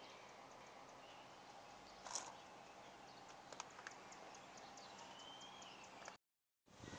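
Near silence: faint outdoor background with faint high bird chirps, a soft bump about two seconds in and a small click in the middle.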